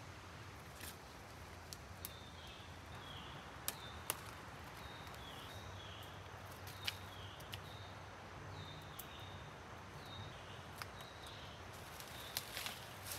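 Forest ambience: a bird repeating a short high whistle that dips in pitch at its end, about once a second, with scattered sharp clicks of plant stems being snapped by hand. Rustling steps through undergrowth come in near the end.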